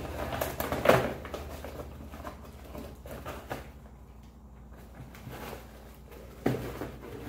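Cardboard box of an artificial Christmas tree being handled and opened: a sharp snap about a second in, faint rustling after it, and a knock near the end as the box is tipped down.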